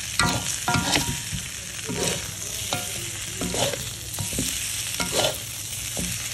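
Food sizzling in a hot pan while a metal spatula stirs it, clanking against the pan about eight times with short ringing notes.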